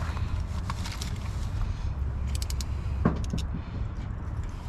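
Steady low background rumble with a few light, sharp clicks and clinks from hand work near the middle.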